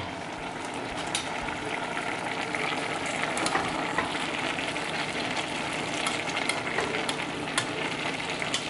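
Steak-and-shrimp stir fry sizzling in a stainless steel pot, stirred with a slotted metal spatula that scrapes and clicks against the pot now and then.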